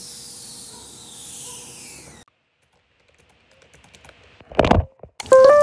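A fading hiss, then a short silence, then faint scattered clicks of typing on a computer keyboard. A short loud thump comes near the end, and a chill beat starts just before the end.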